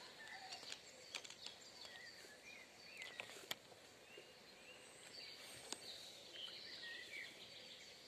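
Faint outdoor ambience of birds chirping, with short twittering calls scattered throughout and a few sharp clicks.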